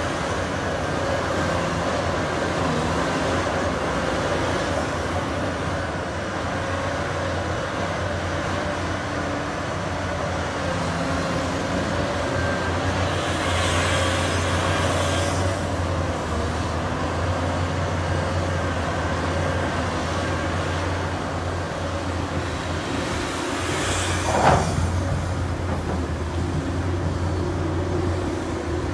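Large hydraulic mining excavator's diesel engine running steadily under load while digging, with a deep steady hum. A brief hiss around the middle and a single sharp knock about three-quarters of the way through.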